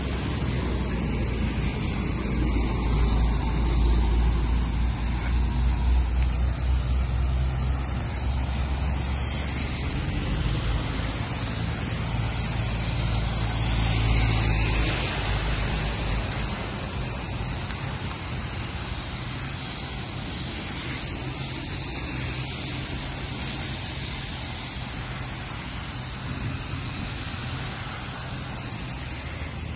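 Street traffic on wet roads: a steady hiss with a deep rumble, swelling a few seconds in and again about a third of the way through.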